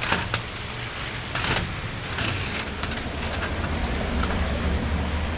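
Low, steady vehicle rumble that grows louder about three and a half seconds in. A few light metal clinks come at the start, from the stove's windscreen being taken off.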